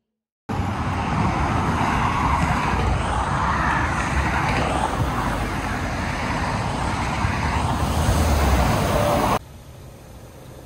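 Loud traffic noise at the roadside of a busy multi-lane road, an even rush with a deep rumble. It starts abruptly about half a second in and cuts off near the end to a much quieter steady hum.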